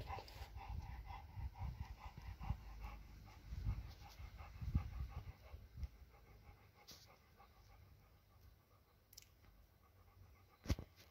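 Bernese mountain dog panting in a quick, even rhythm, fading off after about six seconds.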